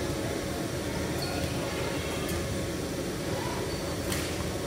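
Steady murmur of a basketball game in a reverberant gym, with voices and play. A few short high squeaks, like sneakers on the court, sound through it, and there is one sharp knock about four seconds in.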